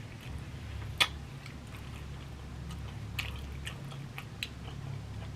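A person chewing a mouthful of food close to the microphone, with small wet mouth clicks throughout and a sharper click about a second in.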